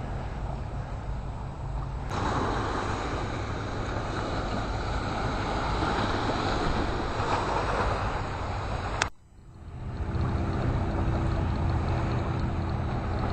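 Seaside ambience on a phone microphone: a steady rush of wind on the mic and sea on the rocks, with a low rumble. It cuts out suddenly a little past nine seconds in and comes back within a second.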